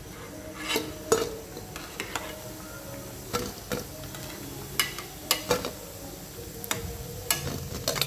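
Steel slotted spoon clinking and scraping against a nonstick kadai as fried potato-and-pea cutlets are lifted out of hot oil, about a dozen sharp, irregular clinks. Under them, the frying oil sizzles steadily.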